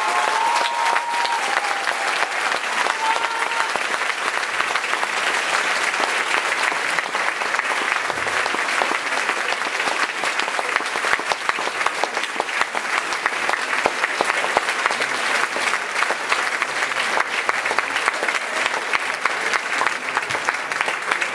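Audience applauding a choir at the end of a song: dense, steady clapping from a large crowd that goes on without letting up.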